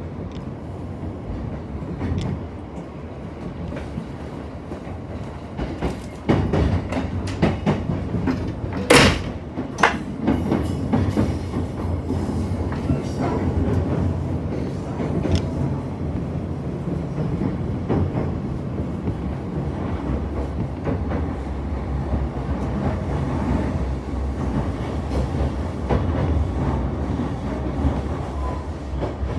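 Yamanote Line electric commuter train running, heard from inside the carriage at the window: a steady low rumble of wheels on rail with scattered clicks and knocks. The clattering grows dense from about six to eleven seconds in, with one sharp knock about nine seconds in.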